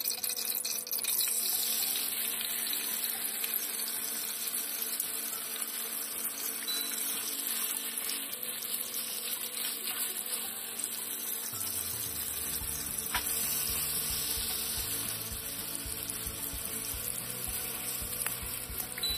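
Raw bacon slices sizzling in hot oil in a pan: a steady, dense hiss with scattered small pops, coming up to full strength about a second in.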